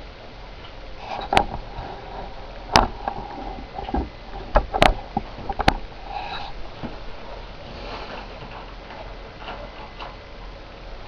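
Model train running on its track: a faint steady hum with about six sharp, irregular clicks in the first six seconds, then a quieter run.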